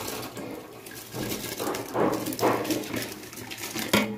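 Washed rice poured from a steel bowl into boiling water in an aluminium pot, the grains sliding and splashing into the water in a few surges. A sharp knock comes near the end.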